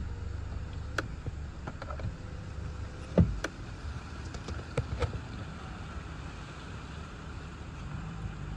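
Gusty thunderstorm outflow wind, a steady low rumble, broken by a few scattered sharp taps, the loudest about three seconds in. A low hum joins near the end.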